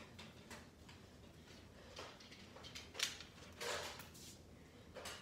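Faint scattered clicks and knocks, with one sharper knock about three seconds in and a short rustle just after it.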